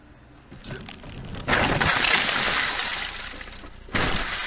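A car colliding with the bucket of a wheel loader: a sudden loud crash about a second and a half in, with glass breaking as the windshield shatters, fading over the next two seconds, then a second loud burst near the end.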